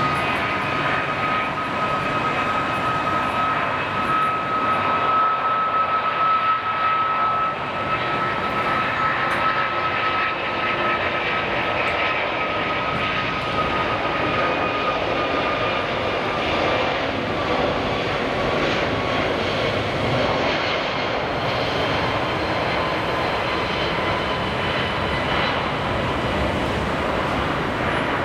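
Boeing 777-200ER's two Rolls-Royce Trent turbofans at takeoff thrust during the takeoff roll: a steady, loud jet roar with a high whine that falls slightly in pitch midway as the airliner passes.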